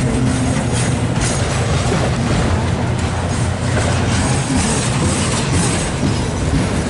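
Freight train of loaded auto-rack cars rolling past, steel wheels clattering over the rail joints under a steady low rumble.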